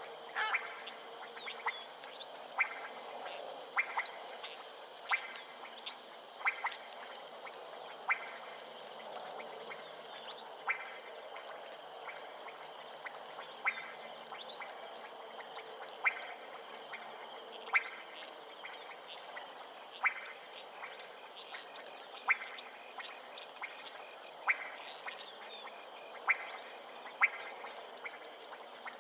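Frogs calling: short, sharp calls roughly every second or two, over a steady high-pitched insect drone.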